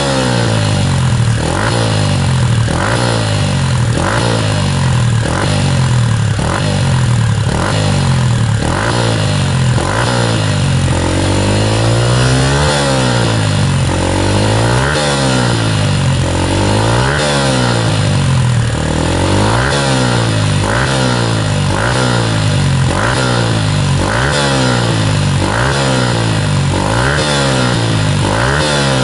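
Suzuki Gixer 150's single-cylinder engine revved over and over through a BEAMS CORSA-EVO II stainless full exhaust, the pitch rising and falling with each blip of the throttle. The blips come about once a second, with a few longer, slower revs in the middle.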